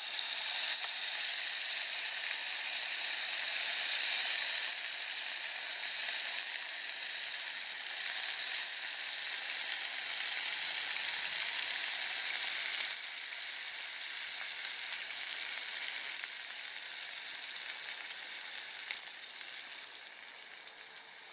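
Ají amarillo and ají mirasol frying in hot oil in a pan, a steady loud sizzle that gradually eases over the later part.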